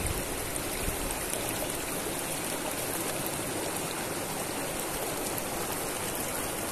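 River water flowing over rocks: a steady, even rush of water.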